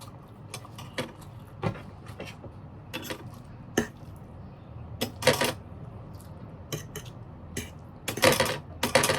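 Cutlery clicking and scraping against a dish during a meal of pancit bato noodles: scattered short clicks, with two longer, louder noisy stretches about five seconds in and again near the end.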